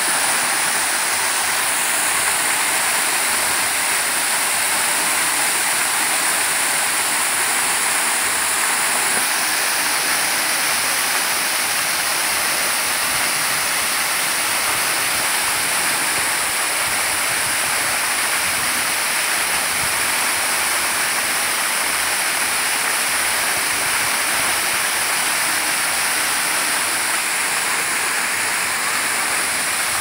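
Waterfall falling onto a shallow rock pool: a steady, unbroken rush of splashing water.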